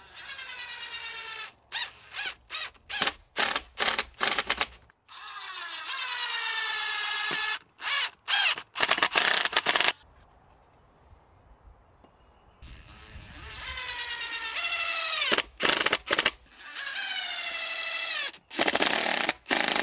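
DeWalt cordless impact driver driving long screws into cedar: several long runs that wind down in pitch as each stops, with quick bursts on the trigger between them to seat the screws, and a pause of a couple of seconds midway.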